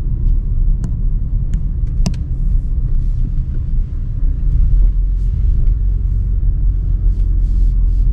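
Steady low rumble of a car driving slowly, heard from inside the cabin: tyre and engine noise, with a few light clicks in the first couple of seconds.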